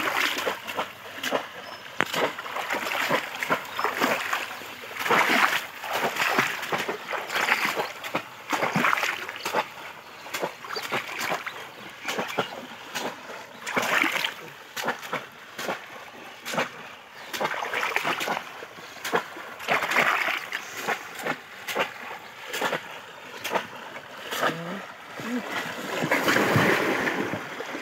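Shallow pond water splashing and sloshing in uneven surges every second or two as a person wades and gropes through it by hand for fish.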